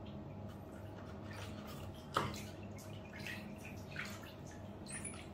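Faint water drips and small splashes in a plastic bucket of water, over a low steady hum. There is a sharp knock about two seconds in and a brief high rising squeak near the end.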